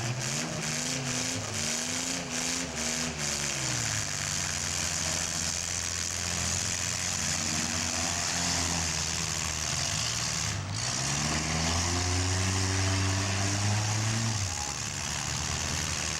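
Small demolition derby car engines revving up and down and idling, their pitch rising and falling repeatedly, over a steady hiss.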